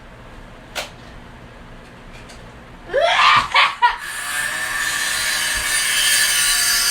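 A brief laugh or squeal, then about four seconds in a small electric motor starts whirring steadily and slowly gets louder.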